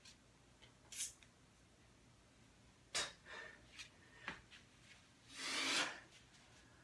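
Faint sounds of a person lowering to the floor in a kettlebell Turkish get-up: a few short rustles and scuffs of body and clothing against the floor, then near the end a longer noisy hiss of a little over half a second, the loudest sound.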